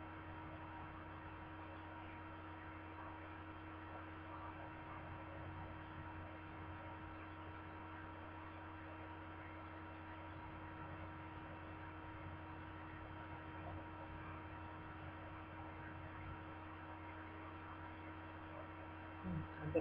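Faint, steady electrical hum made of several constant tones, with no other distinct sound.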